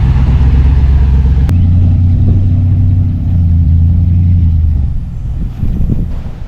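A steady low engine-like hum, shifting pitch once with a sharp click about a second and a half in, then fading near the end into irregular low rumbling.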